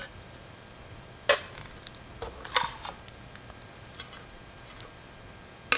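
Pieces of cut mirror glass clinking and tapping as they are handled and set down: a few separate sharp clicks, the loudest about a second in, with fainter taps after.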